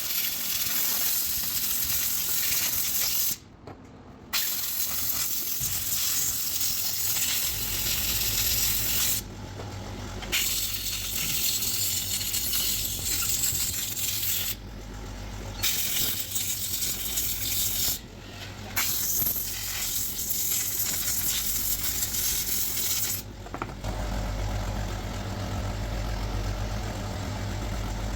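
Pressurised spray hissing in long bursts with short pauses, as when blowing out and cleaning engine parts. From about seven seconds in, a low steady engine hum runs underneath.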